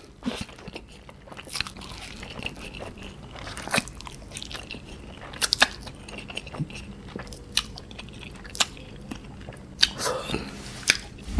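Close-miked eating of Samyang Cream Carbonara instant ramen noodles: wet chewing with irregular mouth clicks and smacks, after a mouthful of noodles is slurped in near the start.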